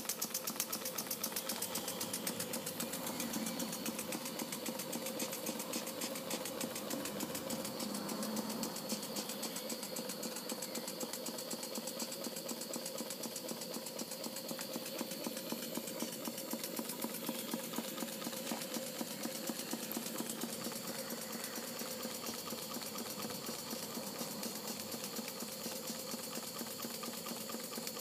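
Model entablature steam engine running steadily on steam, a rapid, even beat of exhaust puffs and mechanical clicking.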